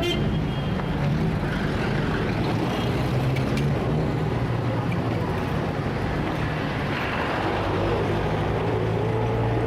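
Heavy city traffic: a steady low drone of engines with the hiss of vehicles passing. In the last few seconds one engine's pitch rises gently as it revs.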